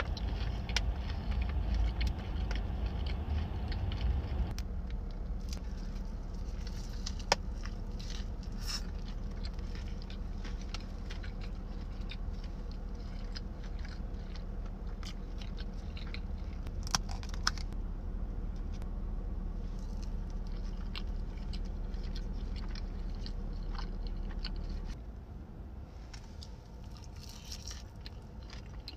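Close-miked eating: food being chewed and bitten, with many small mouth clicks and a few sharp louder clicks, over a steady low hum.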